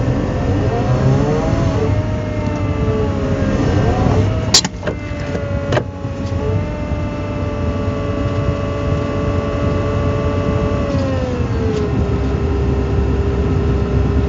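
Volvo EW160A wheeled excavator's diesel engine running under hydraulic load as the grapple and rotortilt are worked, a steady rumble with a whine that wavers in pitch over the first few seconds, holds level, then drops a step near the end. Two sharp knocks come about four and a half and six seconds in.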